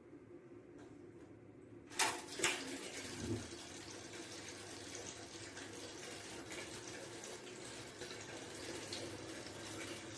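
Two sharp clicks about two seconds in, followed by water running steadily from a tap.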